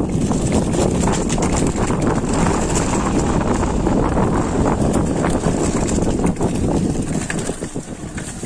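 Mountain bike rolling fast over a rough dirt trail, with wind buffeting the camera microphone. It makes a constant rumble full of small knocks and rattles from the bike jolting over the ground.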